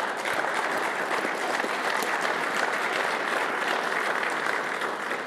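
An audience applauding steadily, a dense even patter of many hands clapping.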